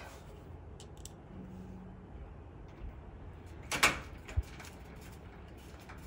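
A few sharp metallic clicks and taps, the loudest a little under two-thirds of the way through, as a screwdriver and a small screw are worked at the metal lock body of a security screen door. The new screw is not biting because its hole is too big for it.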